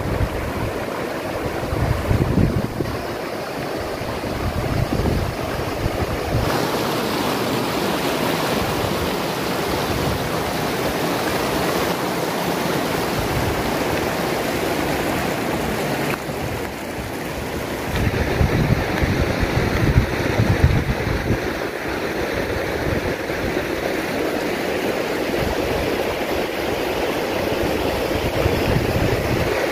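Steady rushing hiss of volcanic steam vents (fumaroles) blowing steam. Gusts of wind rumble on the microphone now and then, strongest about two seconds in and again around eighteen to twenty-one seconds.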